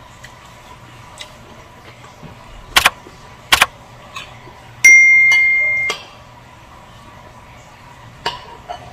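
Subscribe-button animation sound effect: two loud mouse clicks under a second apart, then a notification bell chime that rings one clear tone and fades out over about a second.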